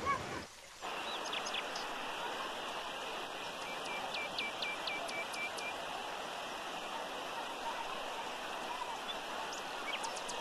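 Muddy rain floodwater rushing down a dirt road, a steady rushing of water.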